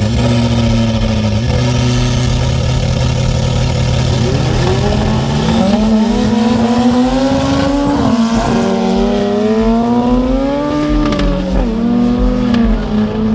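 Drag-racing car engine held at steady revs, then launching about four seconds in and accelerating hard, its pitch climbing and falling back twice as it shifts up. A second car's engine keeps running at a steady pitch underneath.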